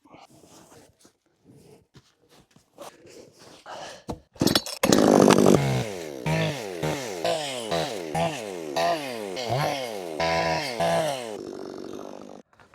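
Small two-stroke gasoline chainsaw starting up about four seconds in, then revving up and dropping back over and over before cutting off abruptly near the end. Quiet handling sounds come before it.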